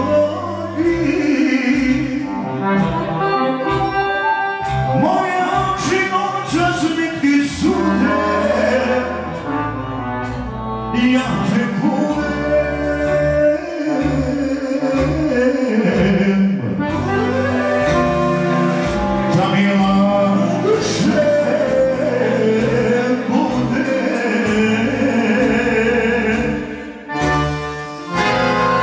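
Live Serbian folk song: a man singing into a microphone over accordion accompaniment, amplified through the hall's speakers. The music dips briefly near the end.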